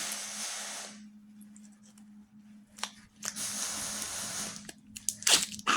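Plastic wrapper of a cheese stick being torn open and crinkled: two long tearing rustles, then sharp crackles near the end.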